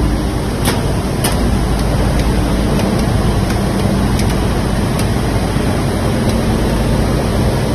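Steady, loud machinery drone of a running waste LDPE film washing and pelletizing line, with a constant low hum and a few faint ticks.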